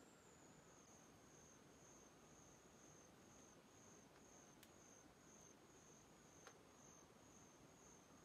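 Near silence: a faint high-pitched tone that pulses evenly throughout, with two faint ticks in the second half.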